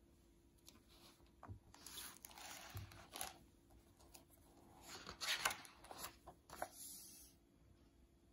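Faint paper swishes of a hardcover picture book's pages being turned by hand, with light taps of the stiff board and paper. There are two turns, one about two seconds in and one about five seconds in.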